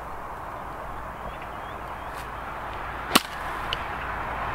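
A 50-degree golf wedge striking the ball out of rough ground: one sharp crack about three seconds in, then a much fainter tick half a second later, over steady outdoor background noise.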